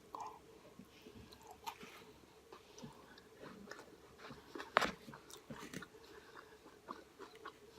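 Close-up eating sounds: a person chewing and biting a Chipotle bowl, with small wet mouth clicks and smacks and one sharper click about five seconds in.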